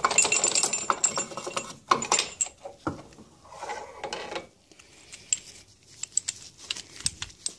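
Metal gearcase parts of an outboard lower unit clinking and rattling as the propeller shaft and its gear are slid out of the housing. A dense clatter in the first two and a half seconds, then scattered light clicks.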